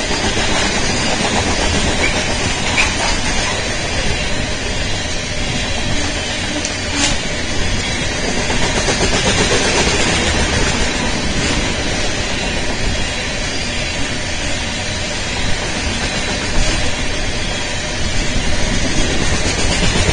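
Loaded coal hopper cars of a long freight train rolling past, a steady, unbroken noise of steel wheels running on the rails, with one faint sharp tick about a third of the way through.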